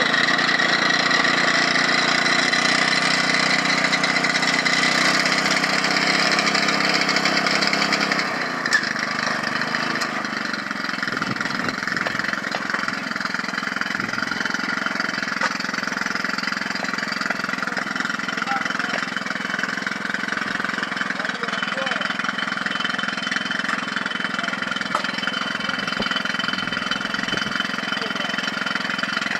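Engine of a construction machine running steadily under test. About eight seconds in there is a sharp knock, and the engine drops to a lower, quieter running note that carries on.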